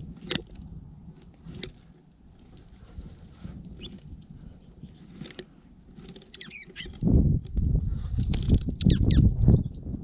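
Small birds feeding at a platform seed feeder: a couple of sharp taps near the start, a few short high chirps in the middle, then from about seven seconds a loud low buffeting with fluttering strokes right at the microphone.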